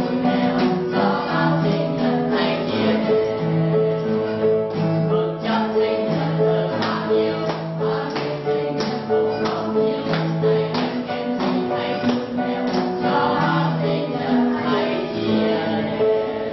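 A small mixed group of men and women singing a song together, accompanied by piano and a strummed acoustic guitar.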